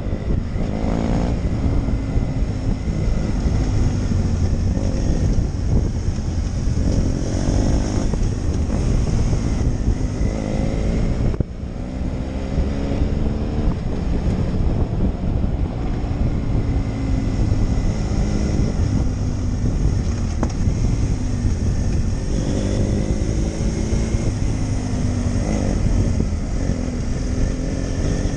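Motorcycle engine running under way, its pitch climbing and dropping again and again as the rider accelerates and changes gear, under a heavy rumble of wind on the helmet-mounted microphone.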